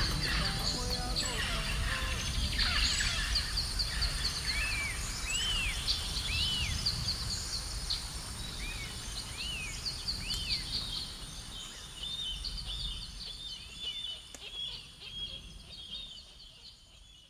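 Forest ambience: birds calling with short, repeated arched whistles and quick trills over a steady high-pitched hum and a low rumble, the whole fading out near the end.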